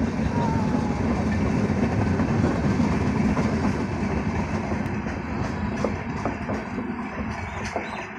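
Red-and-grey LHB passenger coaches of an Indian Railways AC express rolling past: a steady rumble of wheels on rail. In the second half the rumble eases off slightly and the clickety-clack of individual wheel clicks stands out more.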